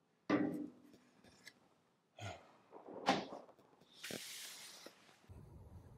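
White PVC drain pipe and fittings being handled and fitted: a few separate short knocks and clunks of plastic, then a soft scraping hiss about four seconds in.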